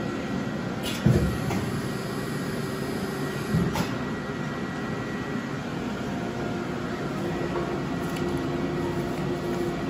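Steady machine hum from high-frequency embossing machines standing powered on, with a faint steady high tone over it. Two dull knocks sound about a second in and about three and a half seconds in.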